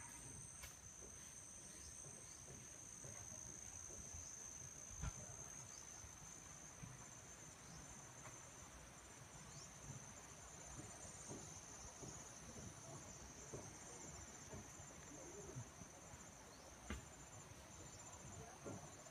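Faint, steady high-pitched trilling of insects in a tropical garden, with a few soft taps or clicks, the loudest about five seconds in.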